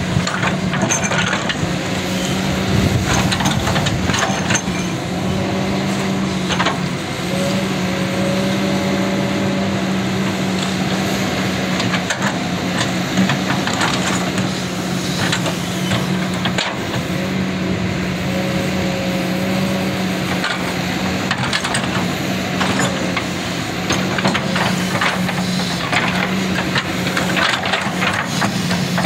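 Kobelco SK200 hydraulic excavator travelling on its crawler tracks: the diesel engine runs steadily under a whine that comes and goes, with irregular clanks and knocks from the tracks.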